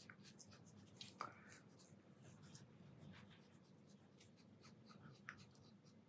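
Very faint, quick strokes of a watercolour brush on smooth hot-pressed paper, painting in short fir-needle sprigs.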